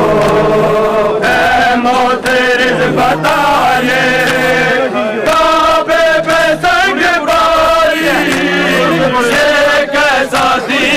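Male voices chanting a slow, melodic chant in phrases of long held notes, with short breaks between the phrases.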